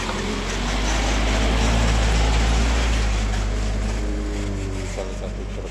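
Loaded dump truck driving past close by, its engine rumble and tyre noise on the rough road swelling to the loudest point about two seconds in, then fading as it pulls away.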